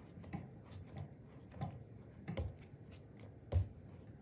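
A lump of clay being wedged by hand on a tabletop: a series of soft, dull thumps, about two a second, with one heavier thump near the end.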